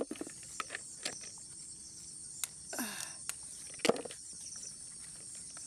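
Insects, crickets among them, chirring steadily and high-pitched, with scattered short clicks and rustles of pepper plants being picked by hand. The loudest snap comes about four seconds in, just after a brief falling sound.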